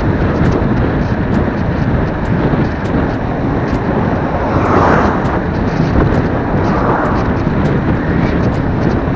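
Wind rushing over the microphone while moving at about 47 km/h on the road, a steady heavy rush with road noise underneath that swells a little about five and seven seconds in.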